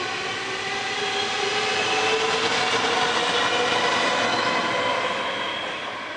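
NS DDZ double-deck electric train pulling away from the platform: the whine of its electric traction motors rises steadily in pitch as it gathers speed, over the rumble of the carriages rolling past. It fades as the last carriage goes by near the end.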